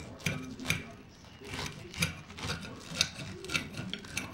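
Knife sawing through a sandwich: rasping strokes through the bread with short sharp clicks, about one or two a second, as the blade meets the plate.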